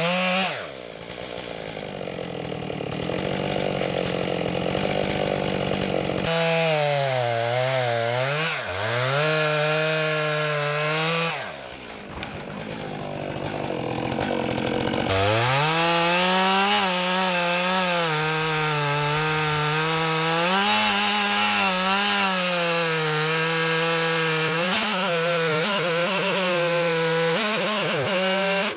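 Stihl chainsaw cutting through a large oak trunk, the engine pitch sagging and recovering as the chain loads up in the wood. Twice the saw eases off and the sound drops and changes briefly before it is back in the cut at full throttle.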